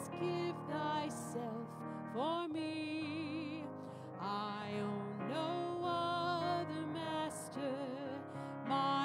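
A woman singing a slow hymn with vibrato, accompanied by a grand piano.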